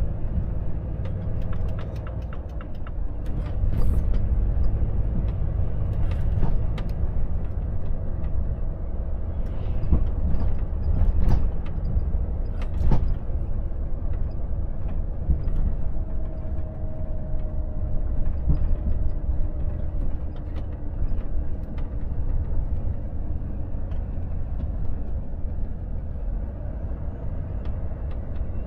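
Volvo FH truck's diesel engine and tyre noise heard inside the cab while driving at low town speed, with scattered short clicks and knocks, most of them in the first half.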